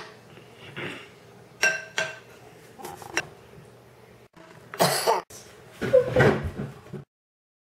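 Metal spoon clinking against a ceramic mixing bowl while stirring a thick, sticky filling: a few sharp ringing clinks. Near the end come louder knocks and handling noises, then the sound cuts off abruptly.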